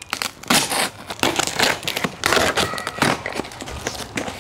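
Large scissors cutting open a shiny plastic padded mailer: the packaging crinkles and crackles in a dense, irregular run of sharp snaps.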